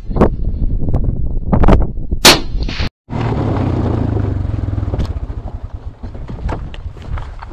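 Several gunshots at a boar hunt, a second or so apart, the loudest about two seconds in. After a short break, a steady rushing noise that slowly fades.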